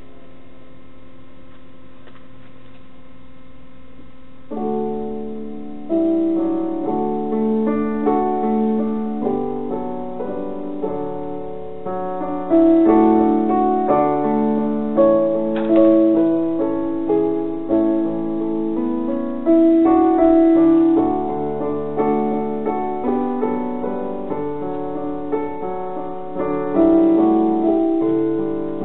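Piano playing: a soft held chord, then from about four seconds in a steady run of chords and melody notes, each struck and fading.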